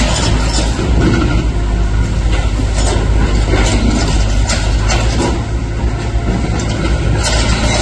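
JCB backhoe loader's diesel engine running under load with a steady low rumble, over scattered knocks and clatter of demolition debris.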